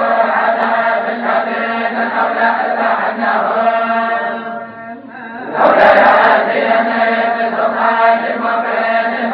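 A group of male voices chanting in unison, a Moroccan tolba recitation by Quranic students. The chant dies down briefly about four and a half seconds in and comes back louder about a second later.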